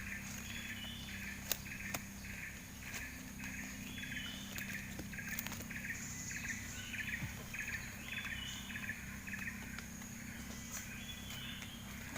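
Rhythmic animal chirping, about three calls a second, with a pause near the end. Under it run a steady high-pitched insect drone and a low steady hum.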